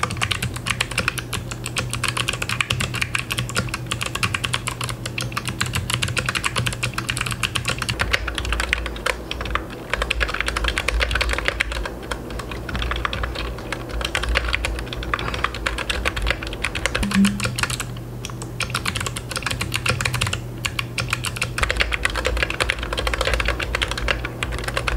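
Fast, continuous typing on a custom-built GK64XS mechanical keyboard with foam laid under the PCB to damp the key sound: a rapid stream of key clacks, broken by short pauses about 9 and 18 seconds in.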